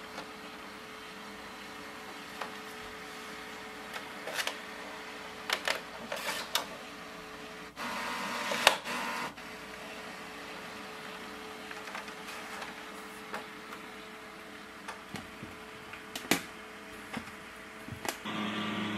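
HP OfficeJet Pro 8139e's automatic document feeder pulling pages through for a scan: a steady hum broken by clicks, with a louder spell of motor noise about eight seconds in and another near the end.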